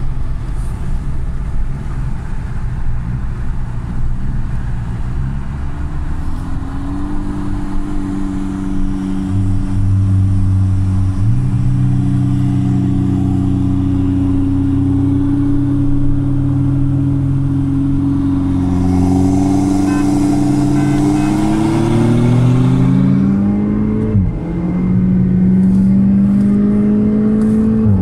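Turbocharged car engine heard from inside the cabin. It starts as a low rumble, and the revs rise about six seconds in and then hold steady. It climbs hard again about 21 seconds in, drops sharply at a gear change about 24 seconds in, and climbs once more.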